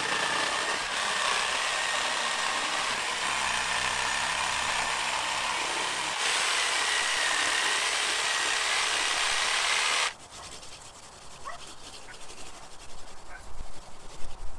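Corded reciprocating saw cutting through the dead limbs of a grapefruit tree, a steady buzz with a faint whine, a little louder from about six seconds in, then stopping suddenly about two-thirds of the way through.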